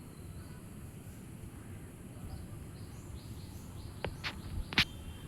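Low outdoor background noise with faint, high, short bird chirps repeating. A few sharp clicks or taps come about four to five seconds in.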